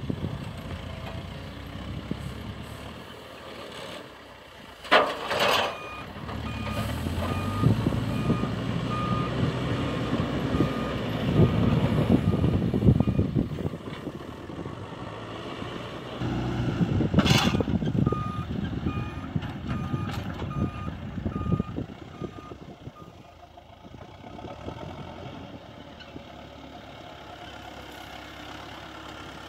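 Heavy diesel machinery at work loading trucks, the engine rising and falling under load. A reversing alarm beeps about twice a second in two spells, and two short sharp hisses come about five seconds in and again some twelve seconds later.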